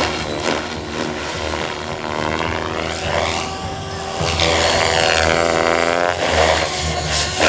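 XLpower Nimbus 550 electric RC helicopter flying 3D manoeuvres: its rotor and motor whine rises and falls in pitch as it swoops and flips, and grows louder about halfway through as it passes closer.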